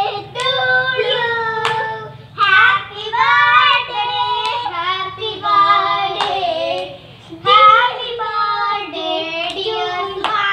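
A high-pitched voice singing a melody in long held notes that bend and waver, with short breaks between phrases and a few sharp clicks along the way.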